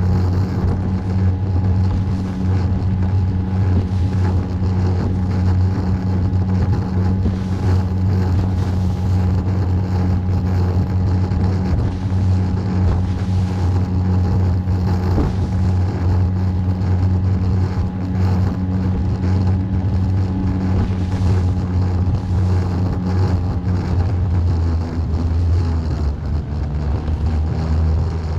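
A small fishing boat's motor running steadily at cruising speed, a low droning hum mixed with the rush of wind and water. The engine note drops slightly a few seconds before the end.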